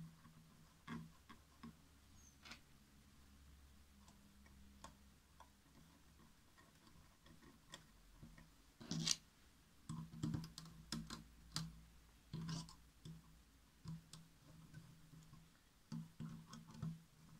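Faint irregular clicks and ticks from a screwdriver turning the spring-loaded screws that fix a graphics card's cooler, tightened a little at a time; the clicks come thicker in the second half.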